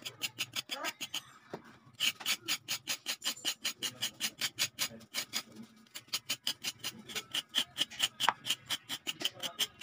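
Kitchen knife blade scraping the thin skin off a carrot in quick rasping strokes, about four a second, pausing briefly twice.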